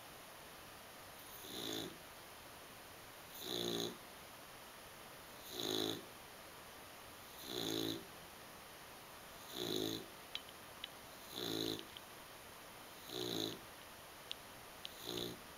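A sleeping pet snoring: a regular snore about every two seconds, eight in all, each a short low rumble with a breathy hiss on top.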